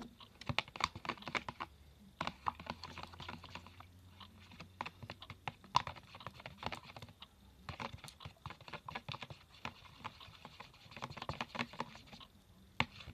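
Glue slime being mixed with activator: quick, irregular sticky clicking and tapping, with a few short pauses.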